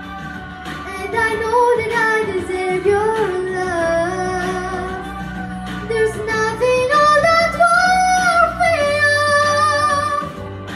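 A young girl singing a pop ballad into a microphone over a backing track, with long wavering held notes. She climbs to a high note held for about three seconds that breaks off near the end.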